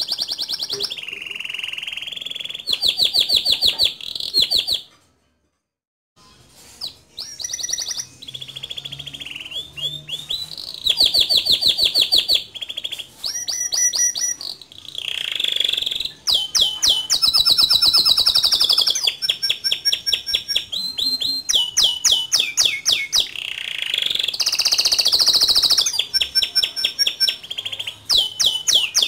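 Male domestic canary singing, a long run of fast rolling trills and sharp repeated notes, breaking off briefly about five seconds in before carrying on.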